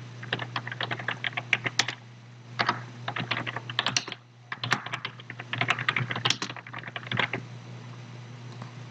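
Typing on a computer keyboard in quick bursts of keystrokes, with short pauses between runs. The typing stops about seven and a half seconds in.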